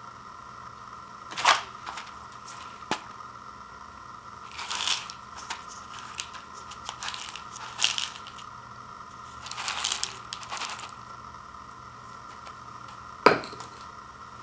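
Handling noise: short rustles and scrapes as a paper food cup and a ceramic bowl are moved about in the hands, with a light click about three seconds in. Near the end comes a sharp knock as they are set down on a wooden table. A steady faint hum runs underneath.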